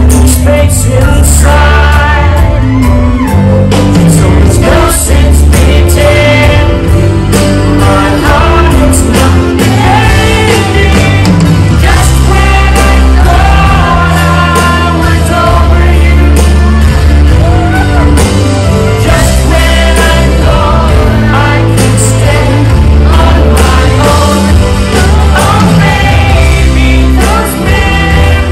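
Live soft-rock ballad played by a band: a male lead singer over acoustic guitar, keyboards and drums, with a heavy, steady bass. It is heard loud, recorded from the audience in a large hall.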